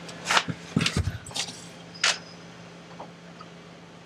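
Clicks and metallic knocks from a sailboat's propeller shaft and its coupling being turned and handled by hand, a few in the first two seconds, one with a short clinking ring, over a steady low hum.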